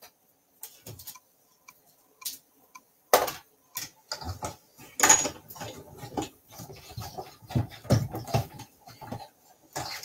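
A metal die and cutting plates being run through a die-cutting machine: a few faint clicks, then from about three seconds in a long run of irregular clicks and knocks.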